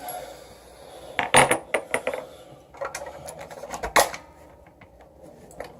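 Small hard clicks and knocks of a vape mod and its battery being handled as the battery is changed. The loudest cluster comes about a second and a half in, with single clicks around two, three and four seconds in.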